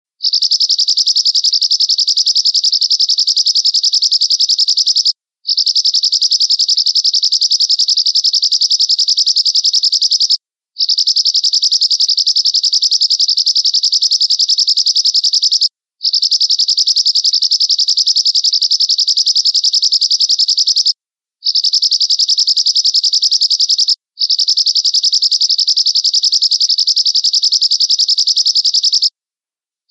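A finch, sold as 'American Finch' birdsong, singing a fast, high, buzzy trill in long unbroken bouts of about five seconds each, six in all with short breaks between, one bout cut shorter, so evenly repeated that it sounds like a looped recording.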